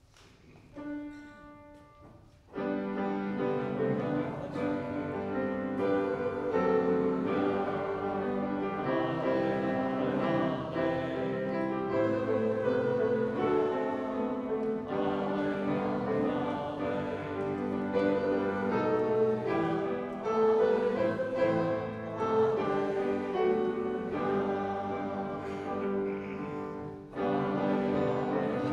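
Church music played on a keyboard instrument with voices singing. A single short note sounds about a second in, then full, sustained chords begin about two and a half seconds in.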